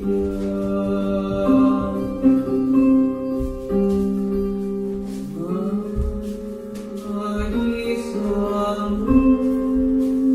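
Slow, meditative music of long held, layered tones, with a slow upward glide in pitch about five seconds in.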